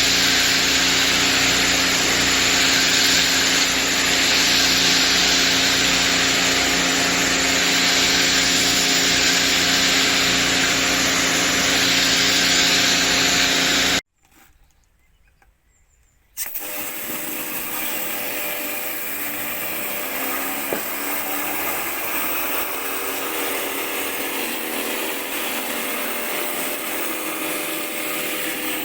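Pressure washer running steadily: a motor hum under the loud hiss of the high-pressure water spray. About halfway through it cuts off to near silence for a couple of seconds, then another pressure washer runs, a little quieter.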